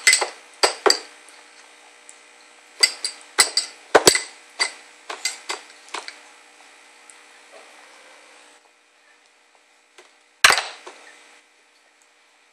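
A metal spoon clinking and scraping against a glass bowl of baby food: a run of sharp, ringing clinks over the first six seconds. One louder knock comes about ten and a half seconds in.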